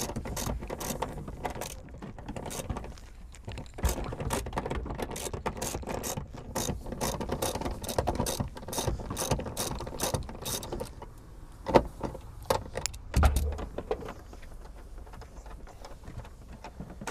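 Ratchet wrench clicking in quick runs as bolts are undone to take out the seat belts, with a loud knock about twelve seconds in and a low thump just after.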